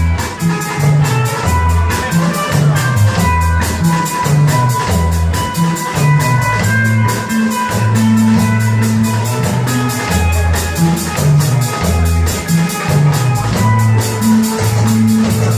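Live rock band playing an instrumental passage: bass guitar line, drum kit keeping a steady beat with quick hi-hat strokes, and guitar.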